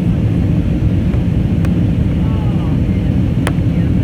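Steady low cabin roar inside an Airbus A320neo airliner in flight: engine and airflow noise heard from a seat in the rear cabin. Faint passenger voices murmur underneath, with a light click a little after three seconds in.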